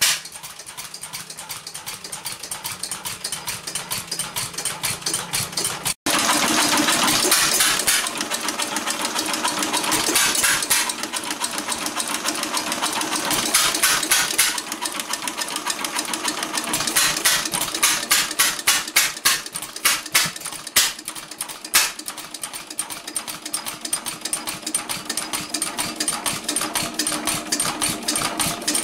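1913 Stickney 1 3/4 HP hit-and-miss engine running, its valve gear and igniter clattering in a rapid, even rhythm. The clatter is louder and closer after a brief break about six seconds in.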